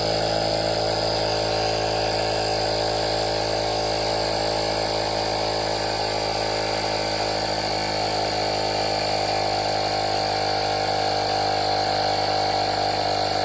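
Cordless portable air compressor (tire inflator) running steadily at an even pitch while pumping up a football, then cutting off suddenly at the end as its automatic shutoff stops it.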